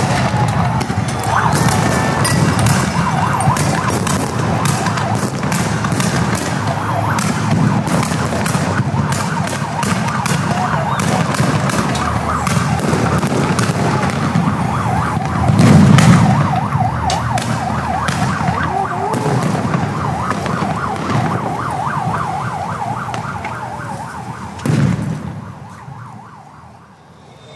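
A siren wails over a riot scene, with a steady stream of sharp bangs and pops. A loud boom comes about 16 seconds in and another about 25 seconds in, and then the sound fades out.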